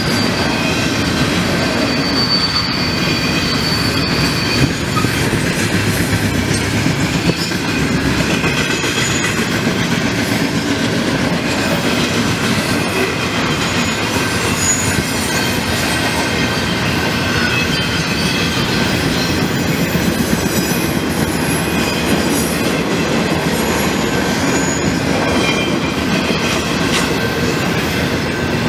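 Intermodal freight train rolling steadily past: a continuous rumble of steel wheels on rail with clicking over the rail joints and thin, high wheel-squeal tones that come and go.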